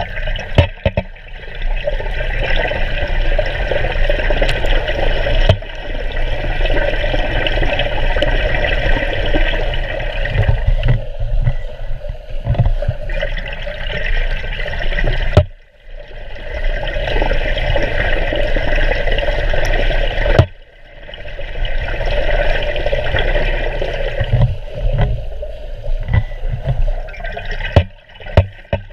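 Muffled underwater sound of a pool: a steady rush of churning water and bubbles from freestyle swimmers kicking and stroking past, with a few sharp knocks. The sound drops away abruptly twice, about halfway and two-thirds through, then builds back.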